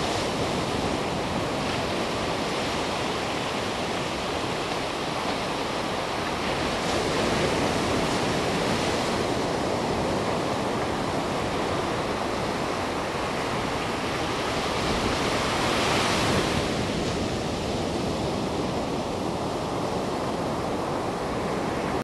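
Small ocean waves breaking and washing up a sandy beach: a steady rush of surf that swells about seven seconds in and again, most loudly, around sixteen seconds.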